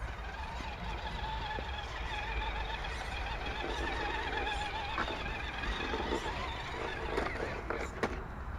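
Electric motor and gearbox of a scale RC crawler whining, the pitch wavering as the throttle and load change, with a few sharp clicks in the second half.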